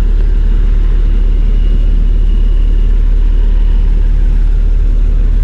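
Large diesel bus engine idling, a steady deep rumble with no change in speed.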